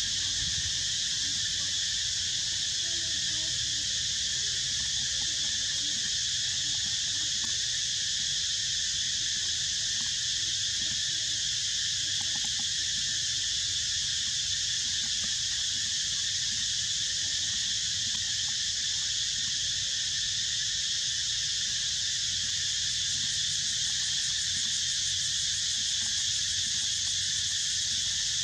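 Steady insect chorus in the forest, a continuous high-pitched shrill drone that does not break or change.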